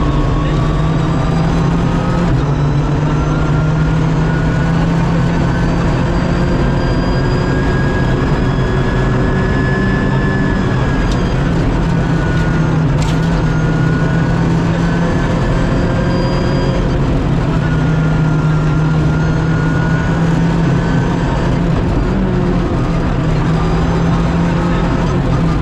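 Rally car engine running hard at high revs, heard inside the cabin over road noise. The pitch rises and falls gently as the car holds the higher gears, with a single sharp click about halfway.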